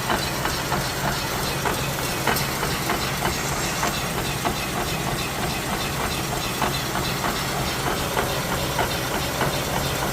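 Toyota Camry XV30 rolling along, with steady road noise and a rapid, repeating knock or click from the running gear. The owner cannot place it: a worn drive-shaft CV joint or a failing wheel hub bearing.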